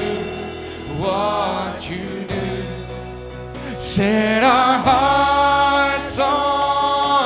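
Live worship band playing a gospel song: voices sing a short phrase about a second in, then a long held phrase from about four seconds in, over the band's steady accompaniment.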